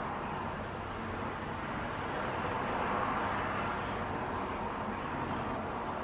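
Steady hiss of radio static from a weather radio receiver with no broadcast coming through, with a faint low hum underneath.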